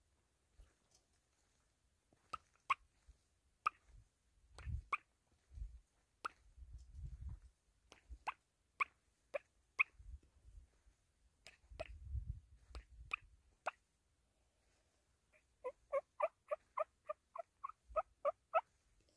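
Short, sharp animal calls, first single and scattered, then a quick run of about a dozen notes at about four a second near the end, over the soft thuds of footsteps on a dirt track.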